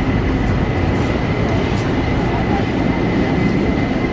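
Steady city-park ambience: a continuous low rumble of urban traffic with indistinct voices mixed in.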